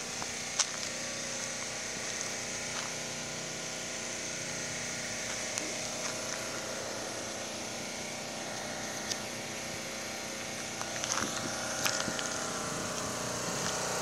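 Generator engine running with a steady hum that grows louder near the end, with a few light clicks over it.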